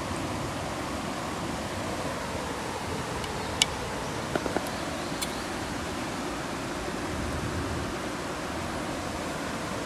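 Steady rush of water noise, with a sharp click about three and a half seconds in and a few small knocks about a second later.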